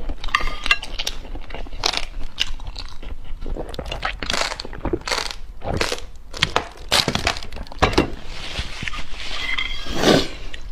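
Close-miked eating: irregular crunches, chewing and mouth smacking, with a longer louder smear about ten seconds in.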